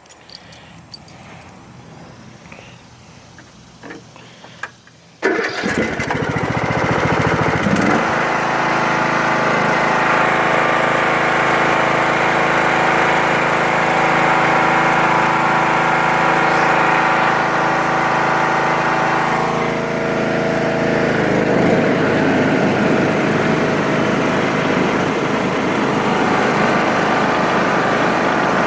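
Troy-Bilt Pony riding lawn mower engine starting about five seconds in, catching at once and then running steadily. Around twenty seconds in its sound shifts and roughens as the mower deck blades are switched on.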